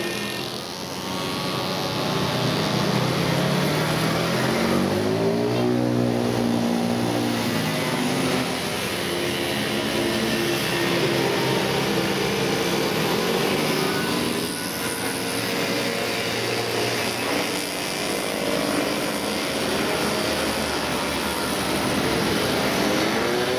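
A stream of 50 cc two-stroke mopeds and small motorcycles riding past one after another, a mass of buzzing engines. Their pitch rises and falls as each machine revs and goes by.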